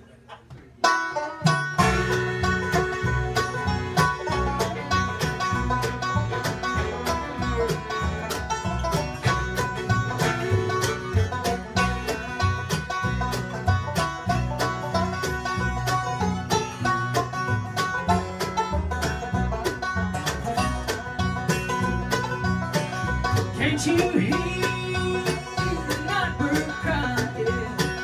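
Live acoustic bluegrass band playing, starting about a second in: banjo, fiddle, mandolin, acoustic guitar and upright bass together.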